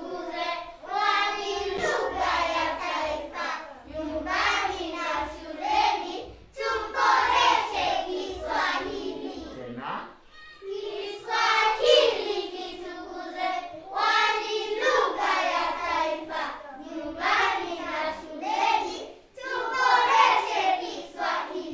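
A group of young children singing a verse together in unison, in phrases with short breaks about ten and nineteen seconds in.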